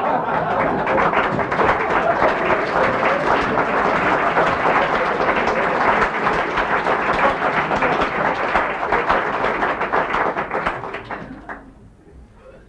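Audience applause, a dense, even clapping that fades out about eleven seconds in, heard on an old tape recording of a radio broadcast.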